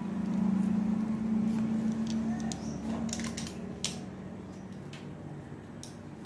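Metal hand-press lemon squeezer juicing a lemon over a plastic bowl, with a few small sharp clicks over a steady low hum that fades after about three seconds.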